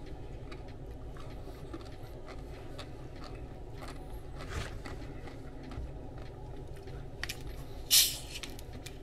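Faint chewing and mouth sounds over a steady low room hum. About eight seconds in comes a short, sharp hiss as the cap of a plastic soda bottle is twisted open, releasing the carbonation.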